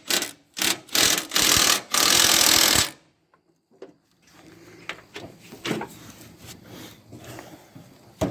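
Electric drill run in a string of short bursts and then a longer one, stopping about three seconds in, drilling out a hole to make it slightly bigger. Faint knocks and handling noises follow.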